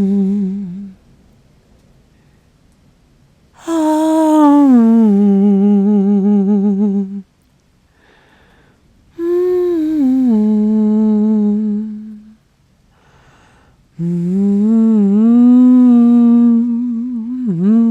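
A woman humming a slow lullaby in long phrases, each gliding down and settling on a held note with a slight waver. The first phrase ends about a second in, and three more follow after short pauses.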